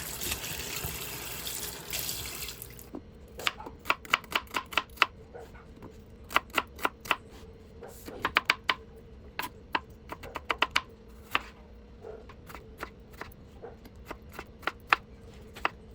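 Water running from a kitchen tap, cut off about three seconds in; then sharp short knocks in quick runs of three or four with pauses between.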